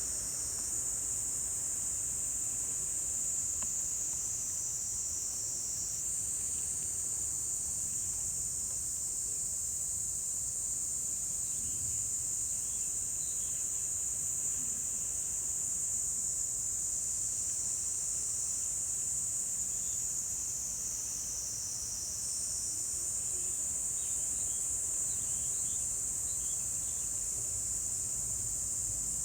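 Insects singing in a continuous high-pitched chorus whose pitch shifts slightly twice, with a few faint short chirps mixed in.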